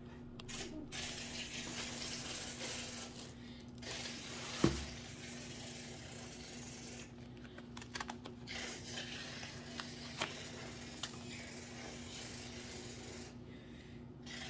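Rustling and crinkling of tissue paper and nylon fabric as hands handle a tote bag, with one sharp knock about four and a half seconds in and a few light clicks later, over a steady low hum.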